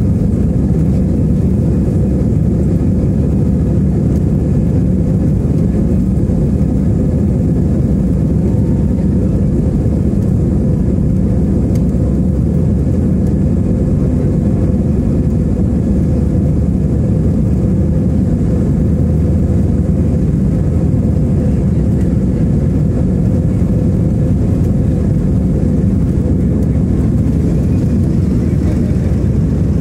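Airbus A320's jet engines at takeoff thrust during the takeoff roll, heard inside the cabin as a loud, steady rumble with a faint steady whine above it.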